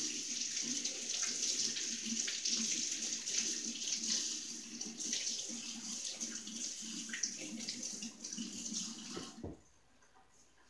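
Kitchen tap running, with water splashing over a carrot being rinsed under it; the water cuts off sharply near the end.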